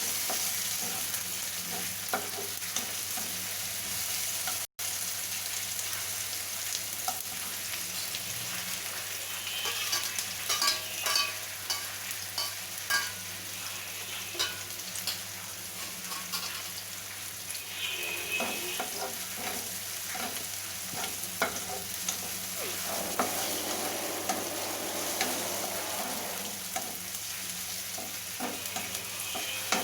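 Onion, tomato and green chillies frying in hot oil in a kadhai, a steady sizzle with a spatula stirring and scraping the pan in scattered clicks, busiest in the middle.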